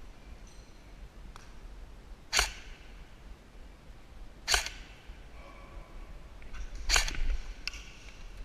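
Three short, sharp, hissy bursts about two seconds apart, over a steady low rumble on the microphone.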